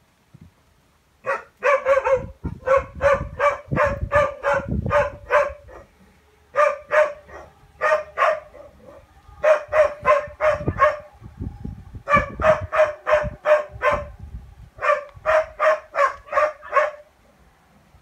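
A dog barking over and over in quick runs of several barks, about three a second, with short pauses between the runs.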